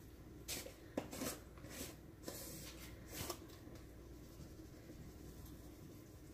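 Faint rustling and a few light clicks as a bouillon container is handled in the kitchen, mostly in the first three seconds, over a steady low hum.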